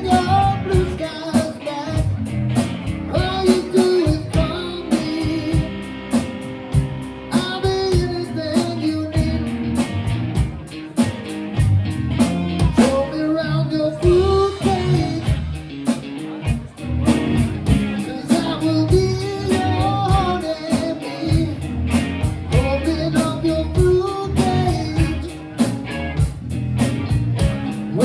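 Band music: a singer over guitar and a drum kit, playing a rock song.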